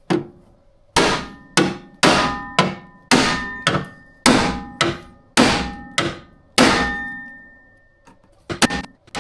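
Hammer striking steel car body metal, about two clanging blows a second, each one ringing on. After a short pause there is a quick flurry of three blows near the end.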